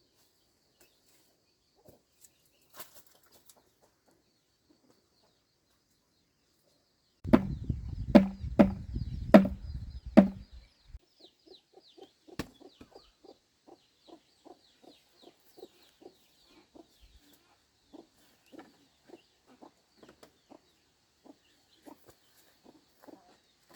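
Five hard, ringing knocks about seven seconds in, a tool striking wood or bamboo. They are followed by a long run of short, evenly spaced chicken clucks, two or three a second, that lasts to the end.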